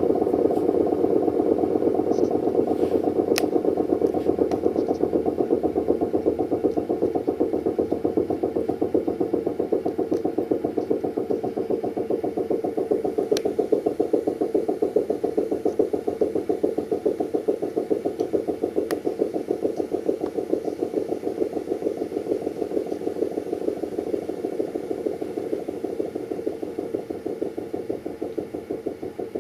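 Elektror L138 electro-mechanical siren sounding a steady, fluttering howl that slowly fades over about half a minute. A few faint clicks can be heard along the way.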